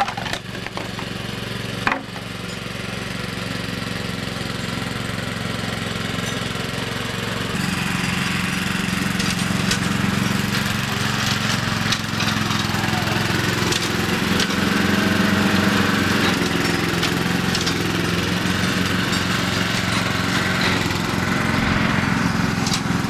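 Riding lawn mower engine running steadily, growing louder about a third of the way through. A single sharp knock sounds about two seconds in.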